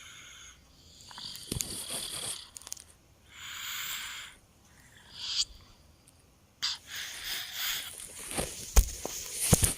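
A two-year-old child snoring in deep sleep: raspy breaths in and out every second or two. A couple of sharp knocks near the end.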